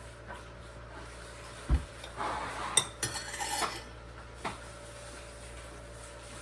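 Kitchen utensils and dishes clattering: a dull thump, then about two seconds of scraping and clinking with a few sharp clinks, and one last clink a second later.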